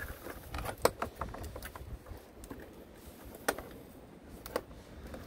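Scattered plastic clicks and light rattles as wiring clips and cable connectors are unpopped behind a BMW F30 door card, the sharpest click about a second in and another a little past three seconds.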